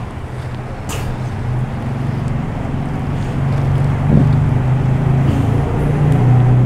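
A motor running with a steady low hum, growing gradually louder.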